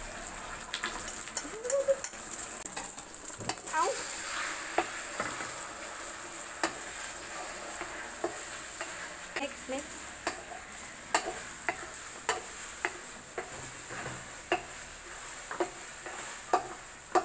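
Beaten eggs sizzling in hot oil in two pans while being stirred and scrambled, with wooden spatulas scraping and knocking against the pans in frequent sharp clicks over the steady sizzle.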